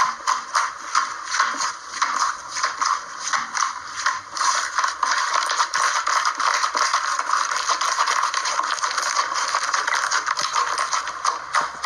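Slime being squished and worked by hand, giving a fast, continuous run of crackly clicks and pops that grows denser about four seconds in.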